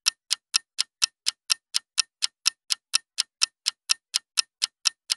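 Clock ticking sound effect: crisp, evenly spaced ticks, about four a second.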